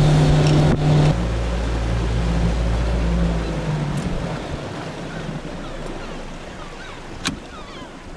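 A boat's motor running steadily, changing abruptly about a second in and then fading away over the next few seconds, leaving a faint wash of water.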